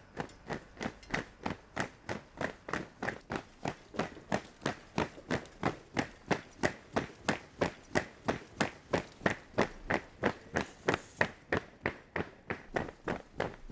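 Soldiers' boots striking a paved road in unison at a jogging pace, a steady rhythm of about three steps a second.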